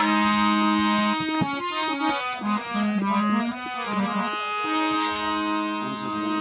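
Instrumental bhajan music: a harmonium plays a melody in long held notes between sung verses.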